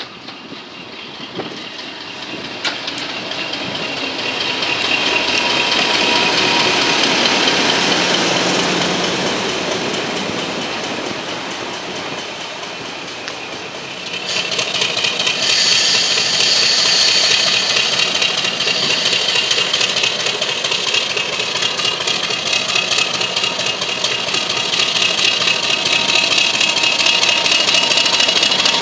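British Rail Class 50 diesel locomotive's English Electric V16 engine. For the first half it approaches along the platform, growing louder and then fading. About halfway through the sound changes abruptly to the engine running steadily close by, with a high whine over it.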